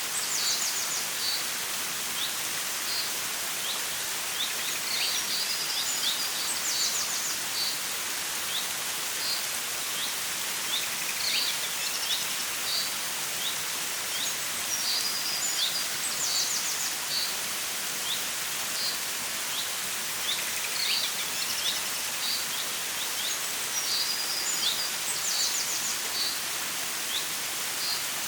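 Steady rush of a flowing stream with birds chirping over it, short chirps and quick trills coming in clusters every few seconds.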